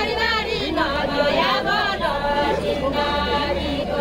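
A group of voices singing a Deuda folk song unaccompanied, in unison, with long drawn-out notes held in the middle of the line.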